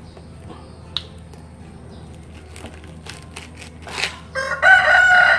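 A rooster crows near the end, one long loud call held for about a second and a half.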